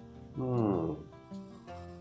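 Background music, with a man's closed-mouth "mmm" of enjoyment while chewing about half a second in, sliding down in pitch and lasting about half a second.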